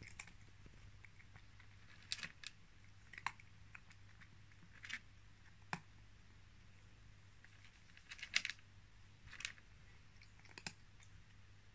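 A cat crunching dry kibble from a plastic bowl: faint, irregular crunches and clicks every second or two, the loudest about eight and a half seconds in.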